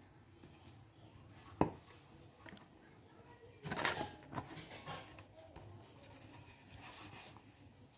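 A plastic soda bottle handled on a concrete floor: one sharp knock about one and a half seconds in, then a couple of seconds of crackling and knocking of the plastic as it is gripped and lifted, fading to faint handling noise.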